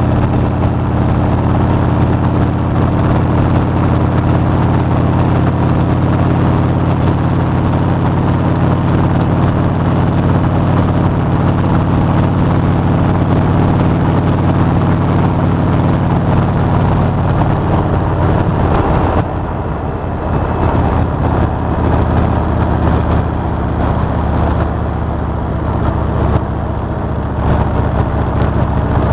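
Motorcycle engine running at a steady road speed, with wind and road noise heard from the rider's seat. About two-thirds of the way through, the engine note changes and the sound gets a little quieter.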